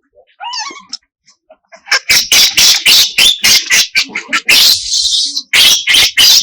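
Baby monkey crying and screaming: a short wavering whimper, then from about two seconds in a fast run of loud, shrill screeches, one drawn out longer near the end.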